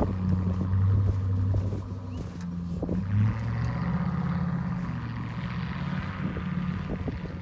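A 4x4 SUV's engine running under load as it drives through deep snow: a steady low drone that steps up in pitch about three seconds in as the revs rise, then fades as the vehicle pulls away.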